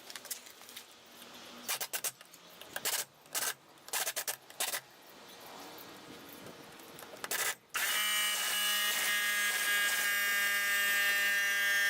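Short bursts of spray paint hissing from an aerosol can, several in quick succession. From about eight seconds in, a steady, even-pitched buzz takes over and is the loudest sound.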